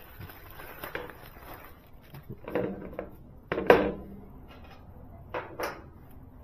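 A few clinks and knocks of small parts and a screwdriver being handled on a steel diamond-plate motorcycle lift table, the loudest knock a little past halfway and two lighter ones later on.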